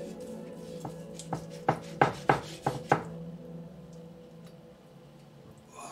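Chef's knife slicing through a seared ribeye steak on a wooden cutting board, the blade knocking on the board in a quick run of strokes between about one and three seconds in.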